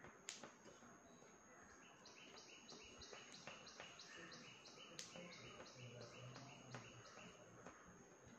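Near silence, with a faint chirping call repeated about three times a second from about two seconds in until near the end, over a faint steady high whine.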